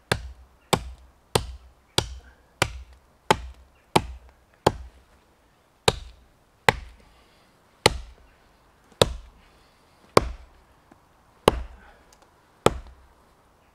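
A small Hultafors Hunters Axe chopping into a small tree trunk: about fifteen sharp strikes, roughly three every two seconds at first, then slowing to about one a second in the second half. The felling cut is close to going through the trunk.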